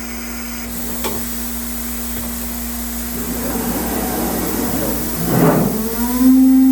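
A steady machine hum with one clear tone, turning rougher and noisier partway through, with a louder swell about five and a half seconds in, then settling into a stronger steady tone near the end.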